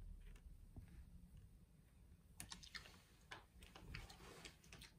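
Near silence with a few faint light clicks and taps, from grated mozzarella being sprinkled by hand onto buttered bread.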